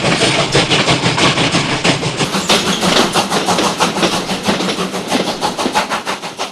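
Steam train running: a rapid, even rhythm of noisy beats, about six a second, that gradually fades.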